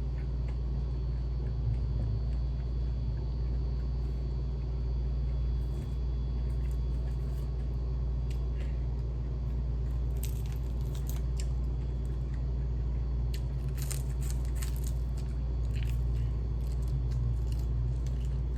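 Crunchy chewing of crisp, refried fried chicken, heard as scattered short crackles that come thickest about ten to fifteen seconds in, over a steady low hum.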